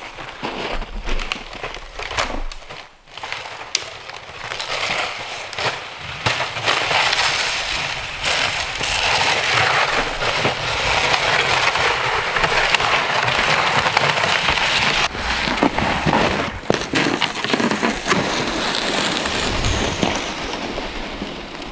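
Footsteps crunching in dry, packed snow and a loaded plastic sled scraping and hissing over it. The sound is a dense crunching hiss with scattered snaps, thin at first and building to a steady, loud drag from a few seconds in.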